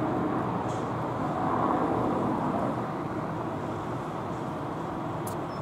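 Air force helicopter flying past overhead at a distance: a steady, even engine and rotor noise that fades a little over the last few seconds.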